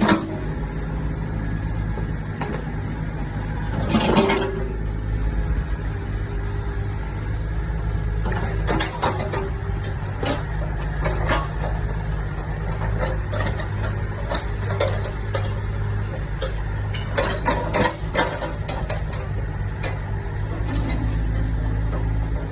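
Komatsu PC38UU-2E mini excavator's diesel engine running steadily, with occasional metallic clanks and knocks every few seconds.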